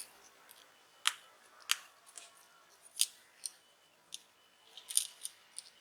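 Small, sharp clicks and taps, about eight at uneven intervals, from small tools and plastic or metal parts handled inside a disassembled smartphone during reassembly.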